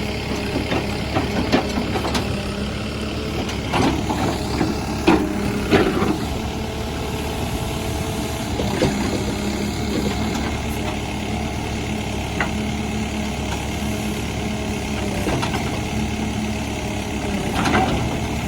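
Diesel engine of a Tata Hitachi Shinrai backhoe loader running steadily, with a few short sharp knocks or clanks over it.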